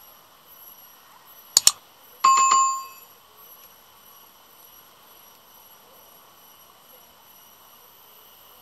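Subscribe-button animation sound effects: a quick double mouse click, then a short bright notification-bell ding about two seconds in. Under them, faint steady ambient noise with a thin high hum.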